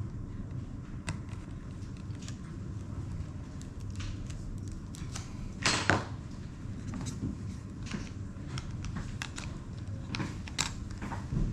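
Scattered light clicks and taps, with one louder brief clatter about six seconds in, over a steady low hum.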